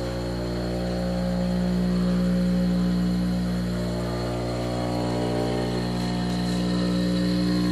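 1985 Swift chaser and cutter grinder's 110-volt single-phase motor running steadily, a continuous hum with a thin high whine, swelling slightly in level a couple of times.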